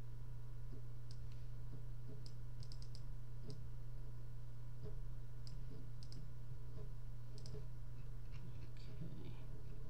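Computer mouse clicking: a dozen or so sharp clicks scattered through, some in quick pairs and short runs, over a steady low hum.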